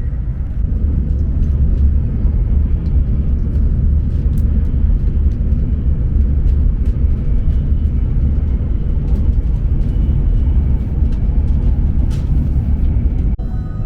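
Hokuriku Shinkansen train running, a steady low rumble with a few faint clicks, cut off abruptly near the end.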